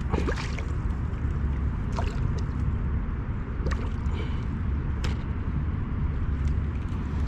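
Wind buffeting the microphone with a steady low rumble, with a few sharp clicks and knocks scattered through it.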